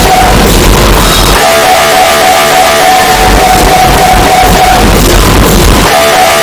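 MRI scanner's gradient coils buzzing, boosted until it distorts: a loud, steady high-pitched buzz that drops out about a second in and again near five seconds, each time giving way for about a second to a low throb. The pattern repeats roughly every four and a half seconds.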